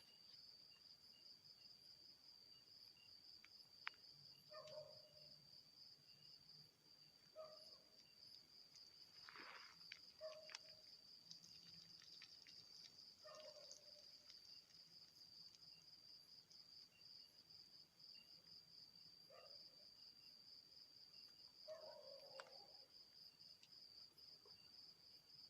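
Faint, steady high-pitched chirring of crickets, with a few soft short sounds lower down every few seconds.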